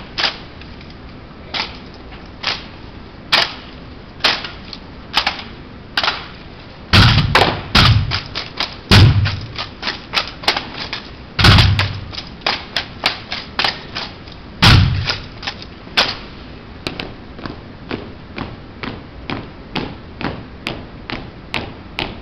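Silent rifle drill: hands slapping, spinning and catching drill rifles, making sharp clacks of wood and metal, sometimes single and sometimes in quick runs of clicks. Several heavier thuds stand out in the middle of the run.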